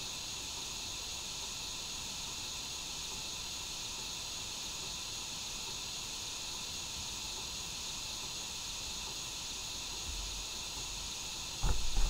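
Märklin Gauge 1 G8.1 model steam locomotive standing with a steady steam hiss. A few sharp clicks and knocks come in near the end.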